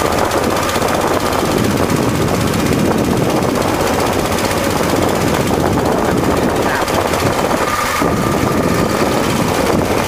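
Small motorboat's engine running steadily as the boat moves across the water.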